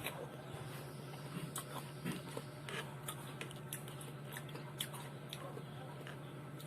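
A person chewing and eating fruit salad close to the microphone, with scattered wet smacks and small clicks over a steady low hum.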